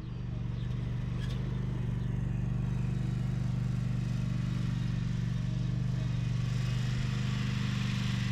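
Zero-turn lawn mower engine running steadily, its level rising slightly over the first couple of seconds and then holding.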